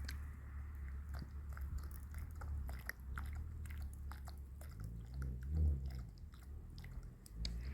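Irregular crackling and crunching over a steady low rumble, with a louder bump about five and a half seconds in.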